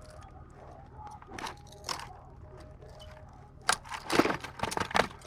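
A freshly landed bass flopping and slapping against the boat. A few faint clicks come first, then a rapid, irregular run of loud knocks starts near the end.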